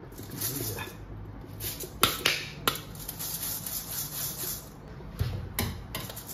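Rinse water draining from washed sushi rice, trickling through a stainless mesh strainer into a steel sink. There are a few sharp clinks of metal bowls and strainer knocking together as the rice is tipped from one into the other.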